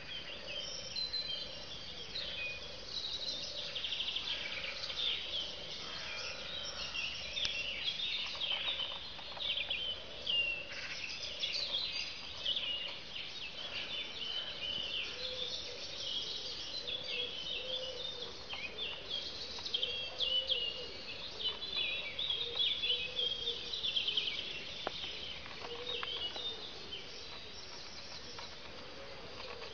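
Outdoor birdsong: several birds chirping and trilling continuously in high, busy phrases, over a lower wavering note.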